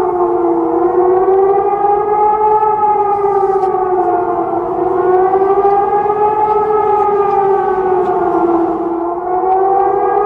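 Civil defense siren wailing in the alert tone of a fictional emergency alarm: several tones sound together as a chord, slowly rising and falling in pitch about every four to five seconds. It cuts off suddenly at the end.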